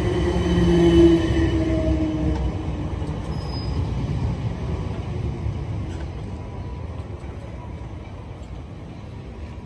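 South Western Railway Class 455 electric multiple unit pulling out of the platform and drawing away, its motor hum and wheel rumble loudest at first and fading steadily as it leaves.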